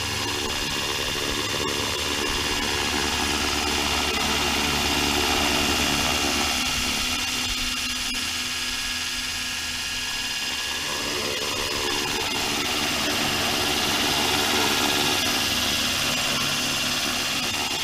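Radio-controlled helicopter hovering low: a steady whine from its motor and spinning rotor blades, swelling and easing slightly twice as it holds position.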